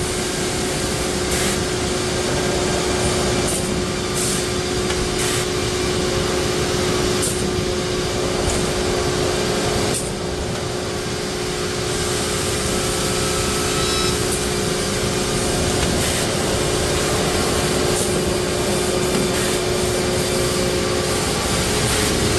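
Six-sided CNC panel drilling machine running: a steady machine hum with one held tone under a broad noise, and short hisses or clicks every second or two.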